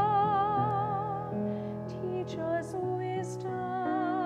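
Solo soprano singing a slow hymn with piano accompaniment: a long note with wide vibrato, a few shorter sung words with sharp "s" sounds, then another held note over sustained piano chords.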